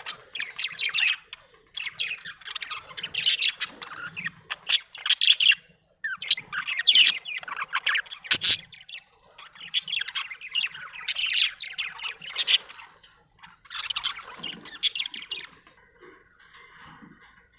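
Budgerigar chattering and chirping in a rapid warble, in bouts of a second or two with short pauses, quieter near the end.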